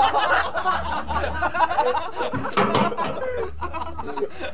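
A man's voice snickering and chuckling in a rapid run of short bursts.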